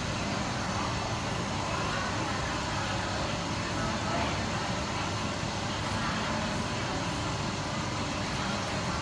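Steady background rumble and hiss, like traffic or a running machine, with faint distant voices now and then.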